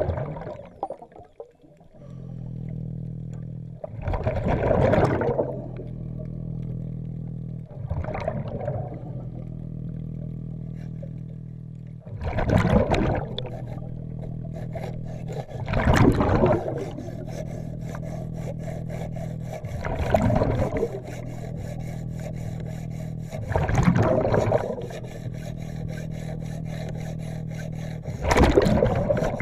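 Underwater breathing through a hookah diving regulator: a rush of exhaled bubbles about every four seconds, each lasting around a second, over a steady low drone.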